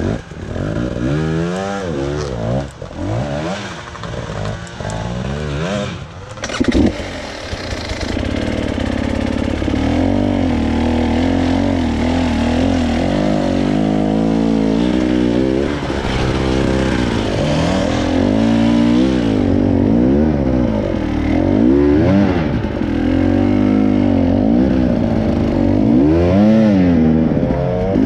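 An off-road vehicle's engine revving up and down over and over as it is driven over rock. There is a sharp knock about seven seconds in, and after that the engine runs louder and more steadily under load.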